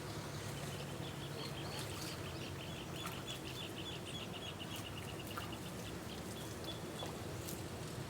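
A bird calling in a fast trill of short, high notes that slowly falls in pitch for about six seconds, over a steady low hum.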